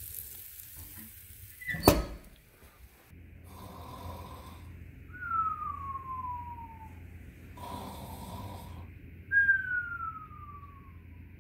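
Mock snoring, twice over: each time a rasping breath in, then a whistle that falls in pitch on the breath out. A sharp click about two seconds in comes before it.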